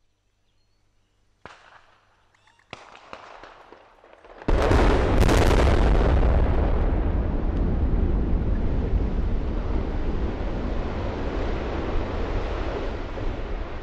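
Explosive demolition of two concrete power-station cooling towers. A few sharp bangs come first, then the main charges go off in a loud blast that runs straight into a long, heavy rumble of the towers collapsing, easing slightly near the end.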